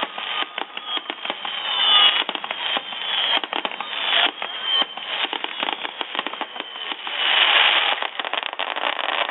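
Fireworks crackling: a dense run of rapid, irregular pops and crackles, swelling louder about two seconds in and again near the end.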